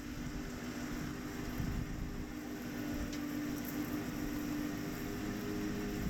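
Farm machinery engine running steadily: a low, even hum with a steady tone over a rumble, no change in speed.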